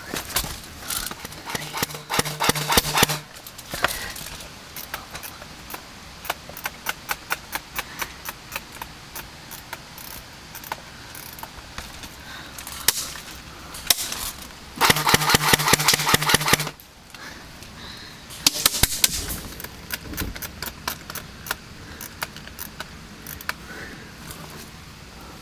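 Airsoft electric guns firing rapid bursts: two loud runs of quick shots about 2 seconds and 15 seconds in, each over the whir of the gearbox motor. A shorter cluster of shots comes near 19 seconds, with scattered single clicks and snaps in between.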